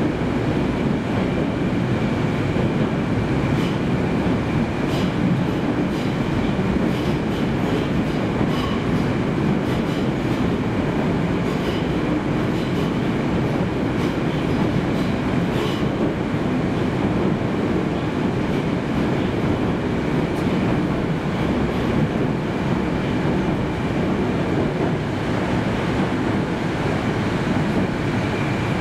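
Moskva 81-765 metro car under way, heard from inside the passenger saloon: a steady, dense rolling rumble of wheels on rail. A faint steady high tone runs through it, and occasional light clicks come in the first half.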